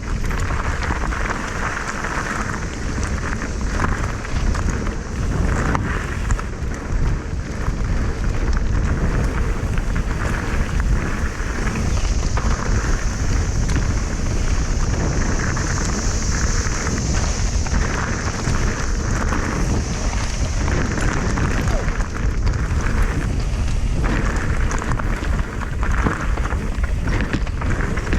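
Wind buffeting the microphone of a camera on the move: a steady, loud, low rumble with constant rattling and rustling. A high hiss swells and fades in the middle.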